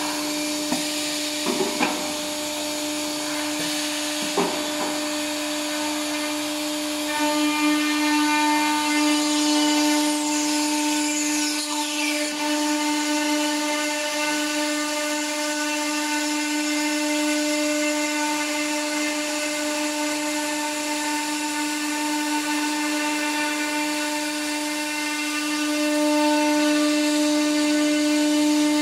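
A CNC wood-cutting machine's router bits cutting through a thick solid wood board. The spindle gives a steady high whine over the noise of the cut, with a few short knocks in the first four seconds.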